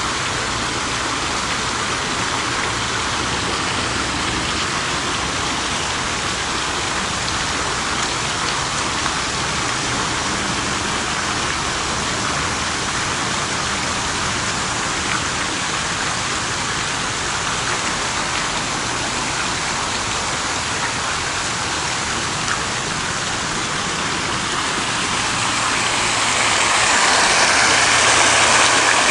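Fountain water splashing in a steady rush, growing louder near the end.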